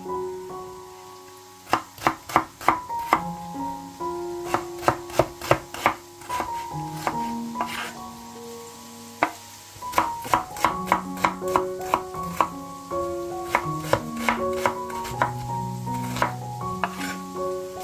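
Kitchen knife chopping an onion on a wooden cutting board: runs of sharp knocks of the blade on the board, about five a second, with pauses between runs, over soft background music.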